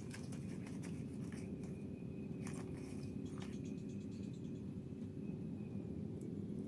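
A few light clicks and clinks of metal spinning reels being handled and lifted out of a bag, over a steady low background hum.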